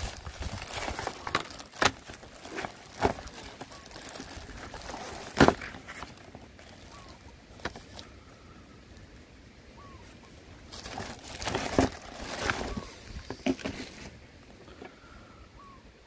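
Thin plastic bag rustling and crinkling as hands rummage through it, with sharp clicks of hard phone cases knocking together; one click about five seconds in is the loudest. The rustling dies down midway and picks up again for a few seconds later on.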